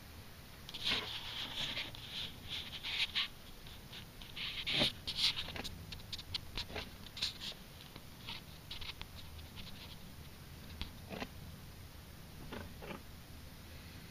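Bursts of scratchy rustling with sharp little clicks, thick during the first five seconds or so, then thinning to scattered clicks.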